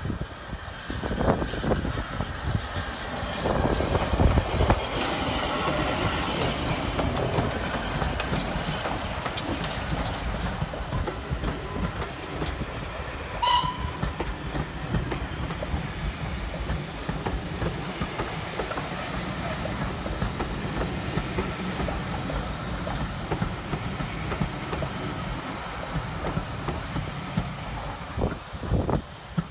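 A steam-hauled passenger train running past and climbing away. Loud, uneven strikes and rumble in the first few seconds give way to a long steady rumble of the coaches rolling over the rail joints, with a brief high note about halfway through. The rumble drops near the end.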